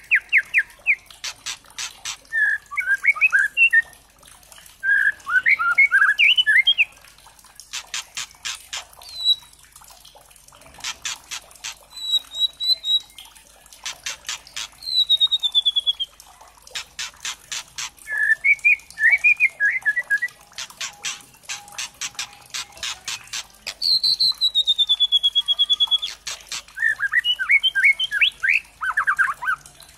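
Young white-rumped shama (murai batu trotol) singing. It repeats fast, dry rattling runs (kretekan) that alternate with short warbled phrases and a few clear whistles that slide downward.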